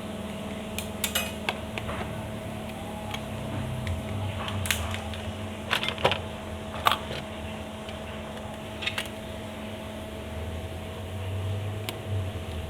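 Light, sharp metallic clicks and taps, scattered and irregular, from small hand tools touching a laptop motherboard during desoldering, over a steady hum.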